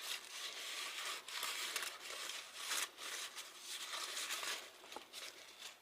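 Faint rustling and scraping with a few light clicks as the disassembled angle grinder is handled and its parts are checked by hand.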